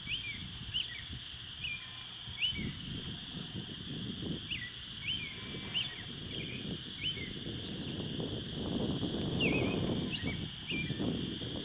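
A chorus of many short, high, rising chirps from small animals over a steady high-pitched hum. Under it runs a low rumbling noise that swells about eight seconds in.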